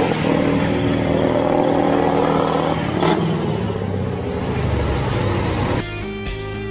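Semi-truck tractor unit's diesel engine revving hard while it spins its tyres in thick smoke, with a steady hiss under the engine. About six seconds in it cuts off abruptly to guitar music.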